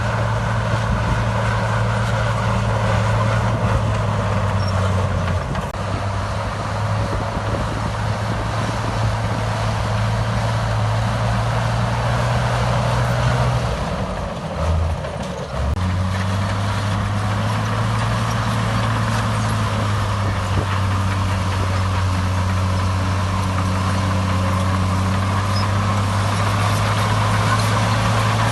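Heavy earthmoving machine's diesel engine running steadily, its note dipping and shifting briefly about halfway through before settling again.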